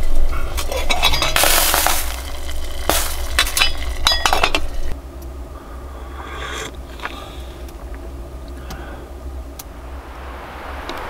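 Small metal kettle handled on a stove top: metal clinks, clatters and scrapes for the first five seconds or so. After that it is quieter, with a few soft sounds while drinking from a steel mug.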